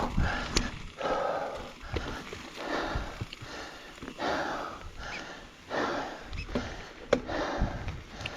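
Mountain biker breathing heavily, hard out of breath from exertion: loud rhythmic breaths in and out, about one every second or so. A few sharp clicks sound from the bike now and then.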